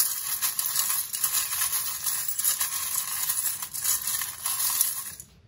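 A handful of small metal charms jingling and clinking together as they are stirred by hand in a metal bowl, a continuous rattle that stops about five seconds in.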